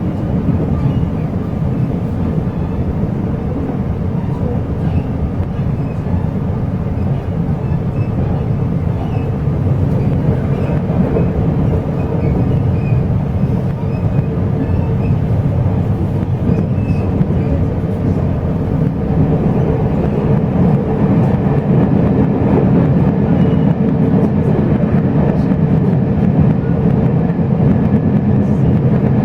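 Steady rumble of a locomotive-hauled Chu-Kuang Express passenger train running along the rails, heard from inside the carriage, with a steady low hum and growing slightly louder in the second half.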